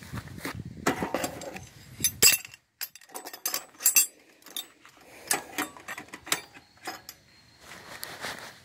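A series of sharp clinks, clicks and knocks of hard objects being handled, irregular and in clusters.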